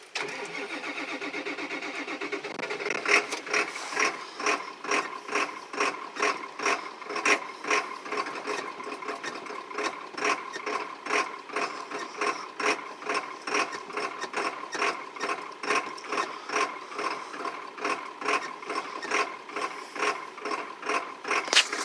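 Ford 7.3 Power Stroke V8 diesel being cranked and restarted after a stall. It chugs in an even rhythm of about two beats a second over a steady high whine.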